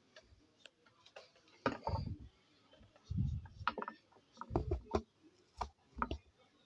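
Scattered clicks, scrapes and dull knocks of a screwdriver being worked into the dented centre of a 12-inch woofer's cone to push it straight, along with handling thumps.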